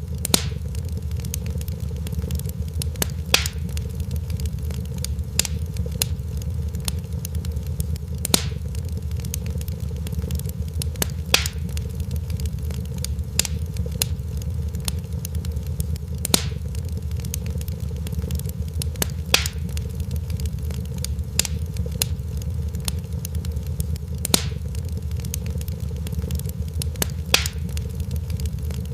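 Crackling fire: a steady low rumble with scattered small snaps and a louder sharp pop every few seconds.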